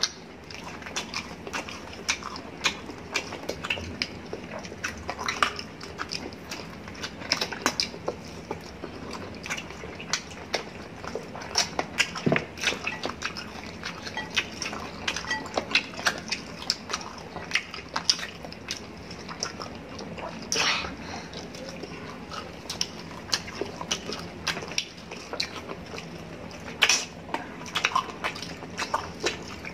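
Close-miked eating sounds: wet chewing and lip smacks with many quick, irregular clicks as people chew rotisserie chicken and grapes with their mouths near the microphone.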